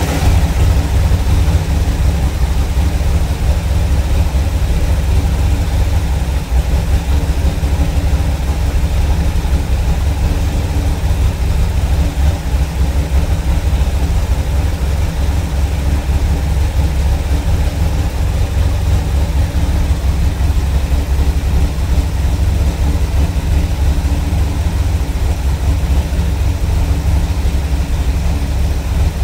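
Car engine idling steadily after a cold start, running with its vacuum leaks freshly repaired.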